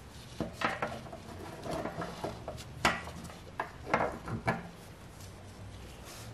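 Toyota Prius fuel injectors being handled and set down one by one on a work surface: a series of light knocks and clicks, the sharpest near three seconds and around four seconds in.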